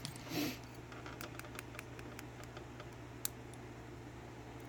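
Small metal clicks of lock pins and parts being handled while an Abus five-pin padlock is taken apart. A short scrape at the start, then a string of light ticks, with one sharper click about three seconds in.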